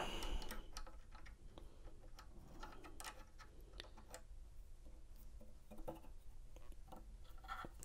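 Faint, scattered small metal clicks and taps: a key and a brass tip stop being seated and clamped in the M2 clamp of a Condor Dolphin XP-005 key-cutting machine.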